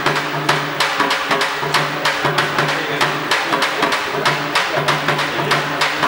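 Percussion-led music: drums beaten in a fast, steady rhythm.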